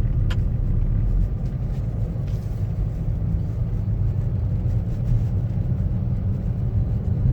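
Steady low rumble of travel along a road, with a faint click just after the start.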